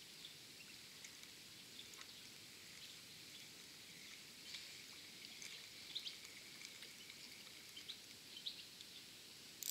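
Faint outdoor ambience: a low steady hiss with scattered faint bird chirps and small ticks, and a faint steady tone partway through.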